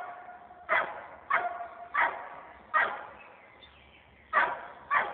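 A dog barking repeatedly: six short, sharp barks, roughly one every half second to second, with a gap of about a second and a half before the last two.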